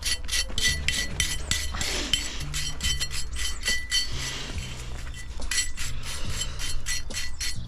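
Ratchet wrench on an extension clicking steadily, about five metallic clicks a second, as a 13 mm bolt is worked loose. Background music with a bass line runs underneath.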